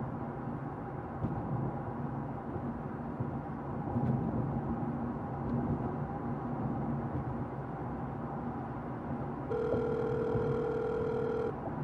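Low steady hum inside a car cabin. About two-thirds of the way through, a mobile phone's call tone sounds once, a steady beep of about two seconds, as a call is placed.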